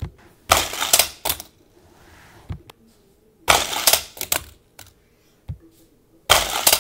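Die-cast Hot Wheels cars clattering along plastic track and knocking into its pieces, in three short bursts of rattling a few seconds apart.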